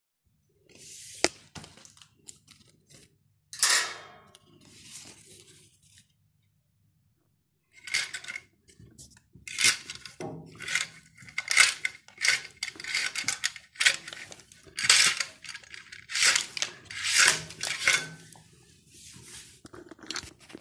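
Pleated paper window blind being handled: irregular crinkling and rustling of the paper with a few sharp clicks, denser in the second half.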